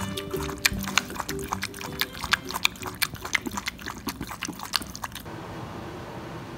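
Bichon Frise lapping water from a floating-disc water bowl: a quick, uneven run of wet clicks and slurps. About five seconds in it gives way to the steady fan hiss of a pet dryer cabinet.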